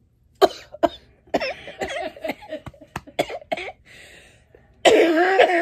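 A woman coughing after inhaling Carolina Reaper pepper powder: two sharp coughs, then a run of short, choked coughs, and near the end a longer, louder outburst of voice.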